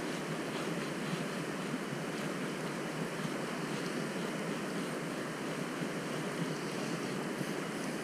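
Steady rush of river water: an even hiss that holds constant, with no distinct events.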